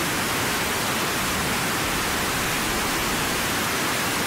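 A steady, even rushing hiss that does not change in level or character.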